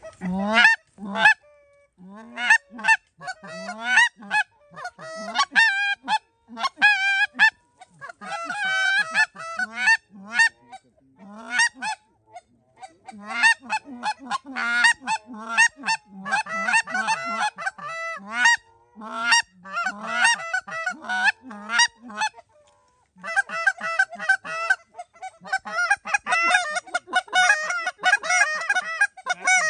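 Canada goose honks and clucks in loud, rapid runs of several calls a second, pausing briefly a few times.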